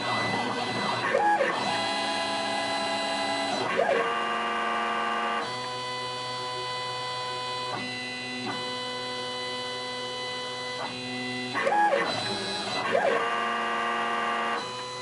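Stepper motors of a Sieg KX1 benchtop CNC machine driving its axes as a drag knife cuts a laminated film label. A steady multi-tone whine that jumps to a new pitch every second or few as the moves change, with a few brief rising sweeps.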